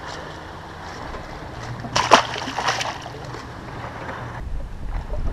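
A small largemouth bass released back into the lake: one short, sharp splash about two seconds in. A low rumble rises near the end.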